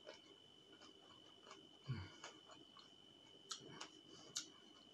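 Faint chewing of grilled chicken with the mouth closed: a few soft, scattered mouth clicks and smacks.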